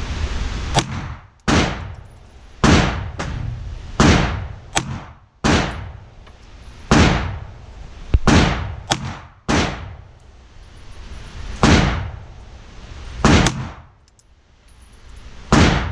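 CZ P10 pistol firing shot after shot, about a dozen sharp reports at uneven intervals of roughly a second or more. Each shot echoes off the walls of an indoor range.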